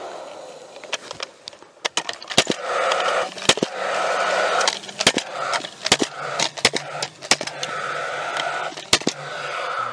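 Gas-powered fencing staple gun firing staples into a wooden fence post through the wire: a quick run of sharp shots, many to the second at times.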